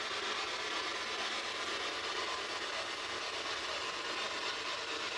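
Steady radio static hiss from a ghost hunter's spirit box.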